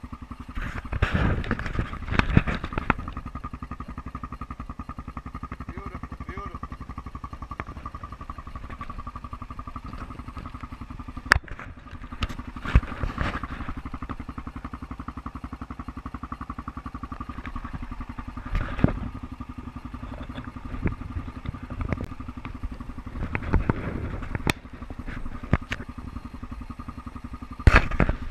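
ATV engine running at a steady, even speed while riding, with repeated bursts of knocks and rattles over the ride, the loudest near the start and near the end.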